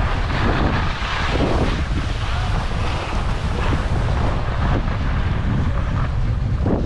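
Wind rushing over the microphone as the camera moves downhill on skis, a heavy steady rumble, with a shifting hiss of skis sliding over snow.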